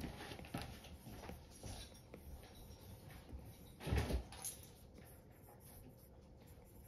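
Apple Pencil tip tapping and sliding on an iPad's glass screen during sketching: light, irregular clicks, with a louder knock about four seconds in.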